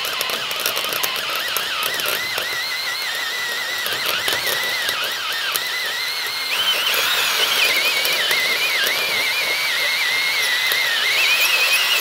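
Cordless drill turning slowly, its twist bit cutting into a Master Lock padlock's soft brass tumblers: a steady, wavering squeal over scraping and small ticks. It grows louder about six and a half seconds in, and its pitch climbs near the end.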